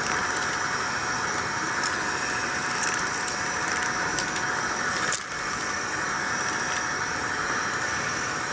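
Vacuum cleaner running steadily with a high whine, with scattered faint ticks; the sound dips briefly about five seconds in.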